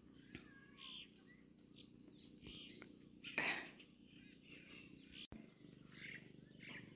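Faint bird chirps over a steady, high insect drone, with one brief louder noise about three and a half seconds in.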